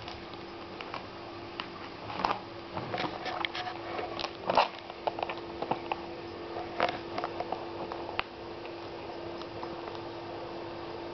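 Soft rustling and scattered clicks, busiest in the first half, as a kitten is held and moves against clothing right at the microphone, over a steady hum.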